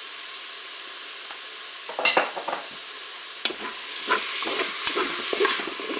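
Chicken pieces sizzling in hot oil in a Cookeo multicooker's bowl on its browning setting. From about two seconds in, a wooden spatula stirs and scrapes them against the bowl in irregular strokes.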